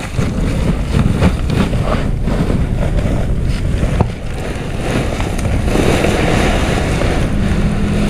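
Wind buffeting the microphone with rustling and handling of a woven feed sack; from a little past halfway, a steady rushing of cracked corn pouring from the sack onto feed pellets in a plastic basin.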